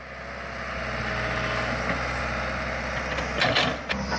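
Excavator engine running steadily while it digs, with a short clatter of metal knocks about three and a half seconds in.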